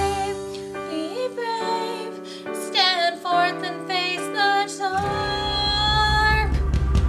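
Pop song with a singing voice over a backing track. The bass and drums drop out into a quieter passage of held and gliding sung notes, then the full band comes back in about five seconds in.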